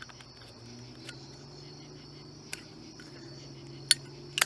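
Crickets chirping steadily, with a few sharp metallic clicks from a Zippo lighter being handled; the two loudest clicks come close together near the end.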